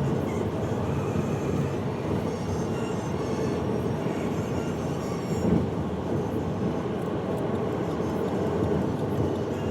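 Steady low rumble of a moving vehicle, with a brief louder bump about five and a half seconds in.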